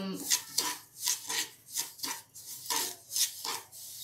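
Wooden spatula scraping and stirring dry semolina around a metal kadhai in repeated strokes, about two or three a second: semolina being dry-roasted for upma.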